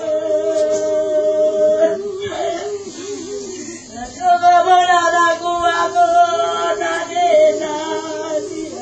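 Singing: a slow tune with long held notes, more than one pitch sounding at once.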